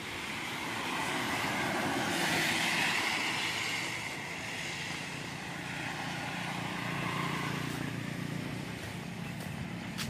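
Traffic passing on a wet road: tyre hiss swells to a peak about two seconds in and fades, and a motorcycle's engine runs by near the middle.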